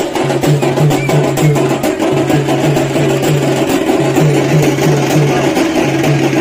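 Loud music with fast, dense percussion over a low bass figure that repeats in short groups of notes.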